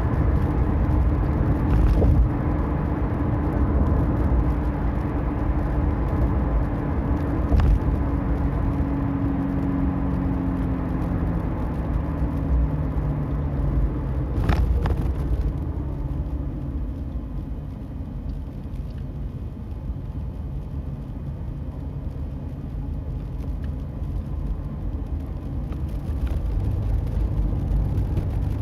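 Toyota Prius on the move: low road rumble with a humming drone from the wheel axle that falls in pitch over the first dozen seconds as the car slows. The owner takes this for an abnormal wheel-axle noise. A few short knocks come through, the loudest about halfway.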